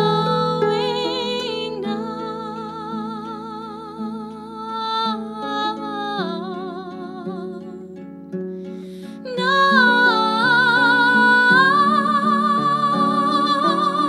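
Music: harp playing under several held, wavering melody lines, which swell louder about nine and a half seconds in.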